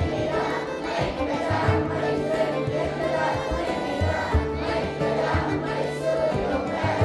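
Music with a group of voices singing together over a steady, sustained accompaniment.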